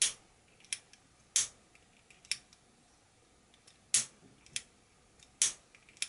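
Small lighter clicking about seven times at uneven intervals, the loudest clicks at the start and three more spread through, as it is struck again and again to heat shrink tubing.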